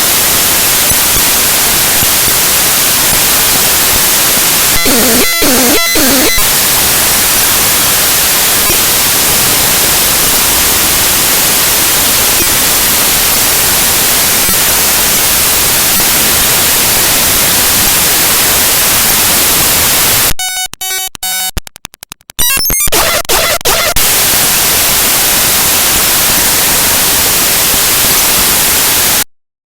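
Raw file data of a flag image played back as audio by Binary Waterfall: loud, harsh static hiss. Brief buzzy, pitched stretches come about five and six seconds in, and a choppy, stuttering stretch with dropouts comes about two-thirds of the way through; the sound cuts off suddenly near the end.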